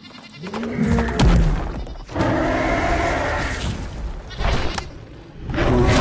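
Dinosaur roar sound effects: a low growl with a bending pitch and a heavy thud about a second in, then a long roar held at one pitch from about two seconds in, and another shorter roar near the end.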